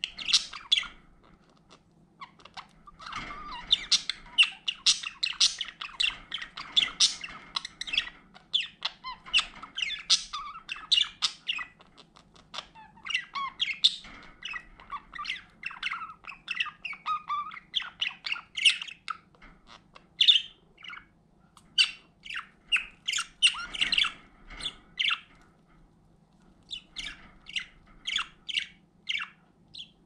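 Budgerigars chattering: fast strings of short, high chirps and squawks. The chatter pauses briefly about a second in and again near the end.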